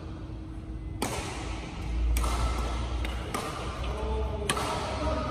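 Badminton rackets striking a shuttlecock back and forth in a rally: four sharp hits roughly a second apart, each ringing on in the hall's echo.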